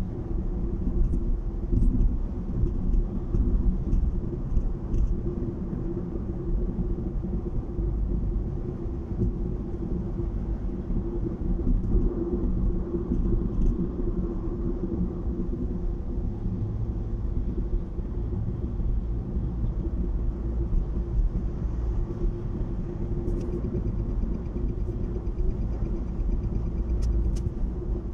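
Steady low rumble of a car driving at highway speed, heard from inside the cabin: tyre and engine noise with a steady hum.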